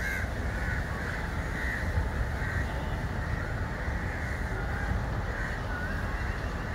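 Crows cawing several times, spread out, over a steady low rumble of background noise.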